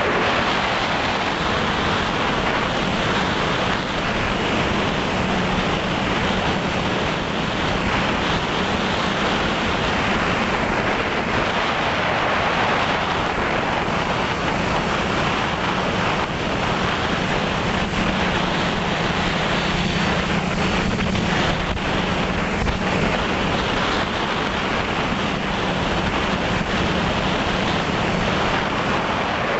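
Steady rush of wind and propeller noise from a multirotor FPV drone, picked up by its onboard camera's microphone, with a low hum that wavers slightly in pitch.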